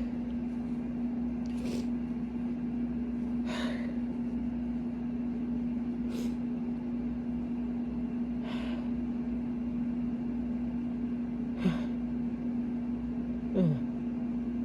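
Loud air-conditioning unit humming steadily, with a person breathing in sharply every two seconds or so while working up to a sneeze. Near the end come two louder catches of breath, the last a short muffled voiced sound falling in pitch.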